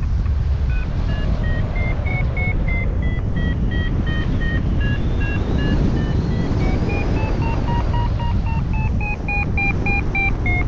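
Paragliding variometer (XC Tracer Maxx) sounding its climb tone: short beeps about three a second, quickening slightly near the end, with the pitch stepping up and down as the lift strengthens and weakens. This is the sign that the glider is climbing in rising air. Steady wind rush on the microphone lies underneath.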